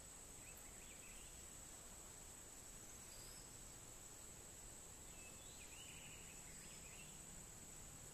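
Near silence: faint rural ambience with a steady high-pitched insect drone and a few faint chirps.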